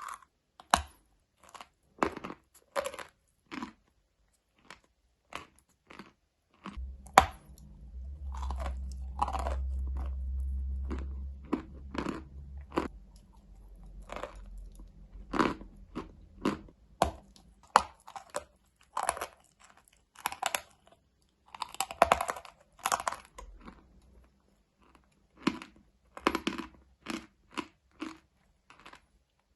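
A person biting and chewing something dry and brittle close to the microphone: irregular crisp crunches, one or two a second. A low rumble comes in about seven seconds in and fades after several seconds.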